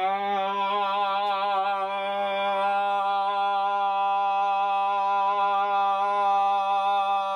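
A man's voice holding the last vowel of a shouted "Großmutter!" as one long, loud note on a single pitch, wavering slightly at first and then steady.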